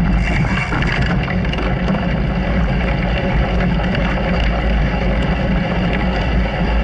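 Small off-road vehicle's engine running steadily under way on a frozen trail, a continuous low hum with driving noise over it.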